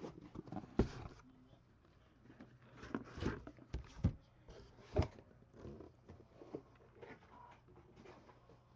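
A few sharp knocks and bumps with rustling, from a handheld camera being picked up and moved on a desk: the loudest knocks fall about a second in, then at four and at five seconds.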